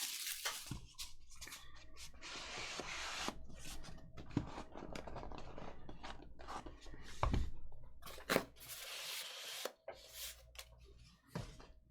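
Trading card packaging and cards being handled and opened: rustling and tearing of wrappers, with a few sharp clicks and knocks.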